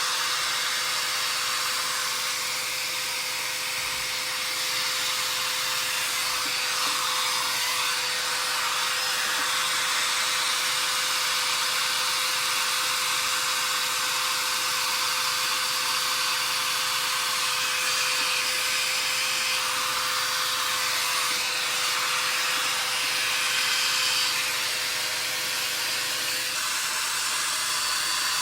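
Handheld hot air brush (a compact 600 W blow-dryer brush) running and blowing hot air through hair: a steady rush of airflow with a faint hum in it. The hum drops out about two seconds before the end while the airflow keeps going.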